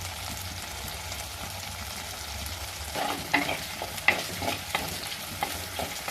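Shallots and garlic cloves sizzling in hot sesame oil as they are sautéed, a steady frying hiss. From about three seconds in, a spatula scrapes and knocks against the pan as they are stirred.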